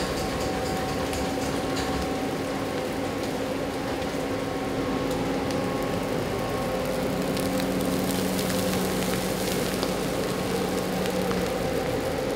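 Large induction-heated stir-fry machine running, its pan rotating and stirring fried rice and ingredients. A steady mechanical hum with several held tones, over scattered light ticks; a lower tone joins about seven seconds in and drops out near the end.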